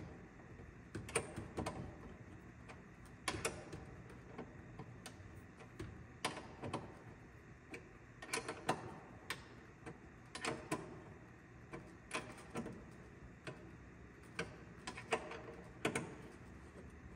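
Ratchet wrench clicking, with metal-on-metal clinks, in short irregular groups as cable lugs are tightened onto a lithium golf cart battery's terminal posts.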